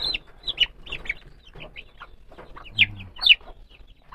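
Silkie chicks peeping: a quick string of short, high chirps, each dropping in pitch, loudest about three seconds in.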